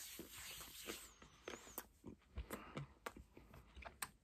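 Faint chewing of an Almond Joy coconut-and-almond chocolate bar: soft, scattered clicks and small crunches.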